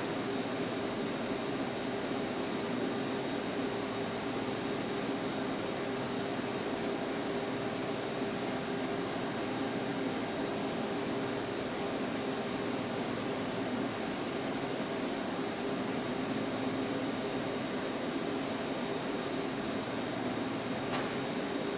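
Steady machine noise, an even hum and hiss with a few constant tones, unchanging throughout.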